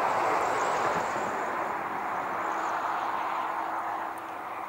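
Broad rushing noise of a passing engine, strongest at first and fading away near the end, over a faint steady hum.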